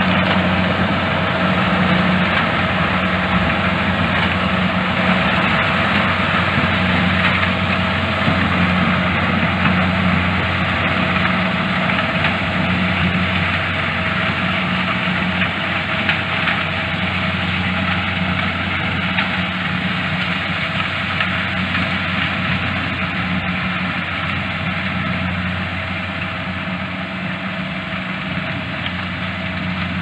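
Corn combine harvester's diesel engine running steadily with its machinery whirring, slowly getting quieter as the harvester moves away.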